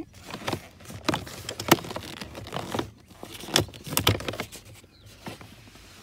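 Plastic lower steering column cover of an Infiniti Q50 being worked loose by hand: a series of irregular sharp clicks and knocks as its stubborn last clip is pulled free.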